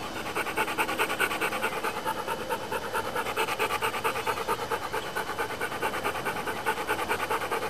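A dog panting hard and fast in an even, rapid rhythm of several breaths a second, chuffing like a steam engine.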